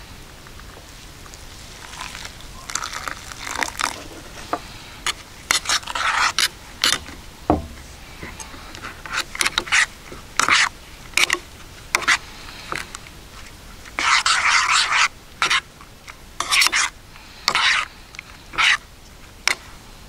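Spoon scraping against a dish of oatmeal in a run of short, irregular strokes.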